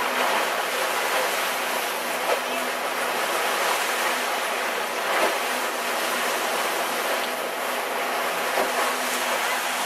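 Steady rush of sea water along the hull of a moving catamaran, with wind on the microphone and a faint low hum from the boat beneath.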